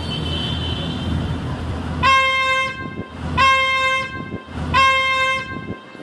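Prank train horn sounding three short, loud blasts about a second and a half apart, each rising briefly in pitch as it starts, over steady street traffic noise.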